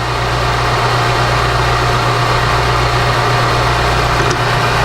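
Electric motor of an HPC Blitz key-cutting machine running with a steady hum.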